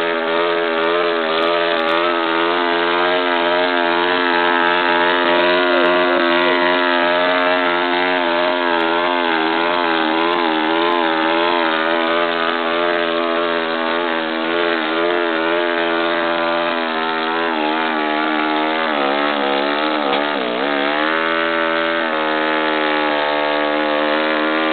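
Motorcycle engine held at high revs through a burnout, the rear tyre spinning on a board. The revs waver, dip sharply about twenty seconds in and climb back.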